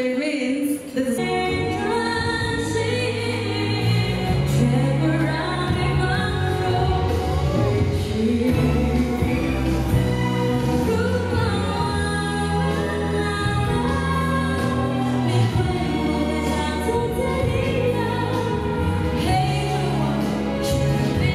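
A woman singing a song into a microphone, amplified, over instrumental accompaniment that comes in about a second in.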